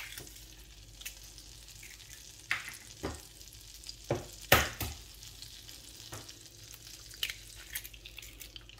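Butter sizzling in a hot pan as two eggs are cracked into it and begin to fry. Several sharp eggshell cracks and taps stand out over the sizzle, the loudest about halfway through.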